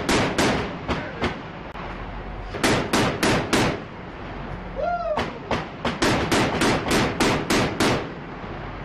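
A shipboard automatic gun firing at a target boat in three bursts of sharp shots, about five a second, the last burst the longest.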